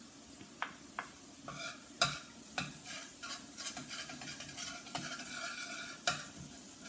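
A utensil stirring and scraping through a sizzling pan sauce, working the lumps out of a flour thickener, with several sharp, irregular clicks of the utensil against the pan.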